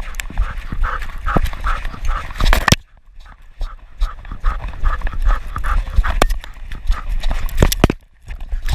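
A giant schnauzer running, heard close from a camera strapped under its chin: rhythmic breathing and stride at about four beats a second, with thuds and knocks from the mount. It goes briefly quieter about three seconds in and again near the end.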